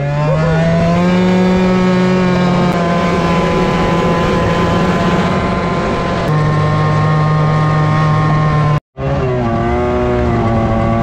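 Snowmobile engine running under way, heard from on the moving sled. It revs up at the start and then holds a steady speed. Near the end the sound cuts out for a moment, then comes back with the engine speed rising and falling.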